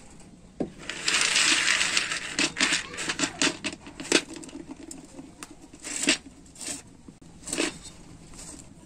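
Raw cacao beans rattling and clicking in a pan as they are stirred while dry-roasting: a sliding rush of beans about a second in, then scattered sharp clicks.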